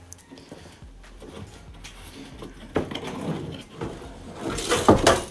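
Plastic car bumper cover being worked loose and handled: scraping and knocking of plastic, building up, with several loud sharp clacks near the end.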